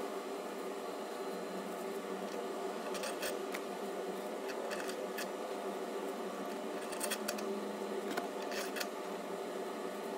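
Steady room hum with several light clicks and taps of small metal parts being handled: a long bolt and the aluminium bracket at a CNC router's ball-screw nut.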